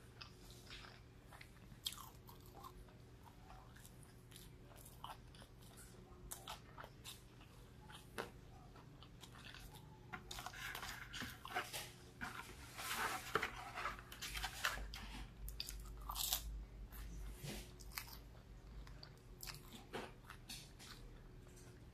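Close-up chewing and crunching of breaded fried fish and crinkle-cut fries: irregular crisp bites and chews, coming thicker and louder in the middle, over a faint steady hum.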